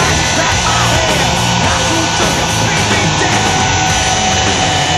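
Loud heavy rock music playing steadily.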